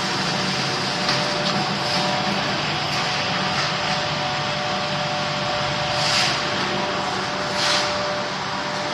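Steady machine noise with a constant hum, swelling briefly into a louder hiss twice, about six seconds in and again a second and a half later.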